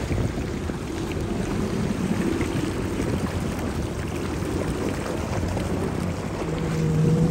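Jet ski engine running at speed as the craft turns tight circles, with the rush of its water jet and spray. About six and a half seconds in, a steady engine tone comes up louder.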